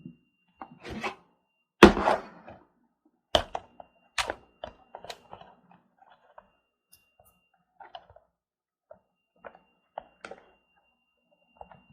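Hard plastic knocks and clicks from handling a small toy washing machine. The loudest knock comes about two seconds in, two more follow within the next two seconds, and fainter scattered clicks come after.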